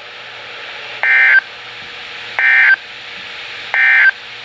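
NOAA Weather Radio SAME end-of-message data bursts: three short bursts of digital tone, about 1.4 seconds apart, over the receiver's steady static hiss. They mark the end of the severe thunderstorm watch message.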